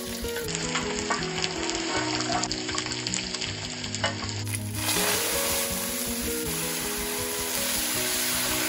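Ginger, green onion and bay leaves sizzling in hot oil and sauce in a wok, with a few light clicks of a metal spoon. The sizzle gets louder about five seconds in.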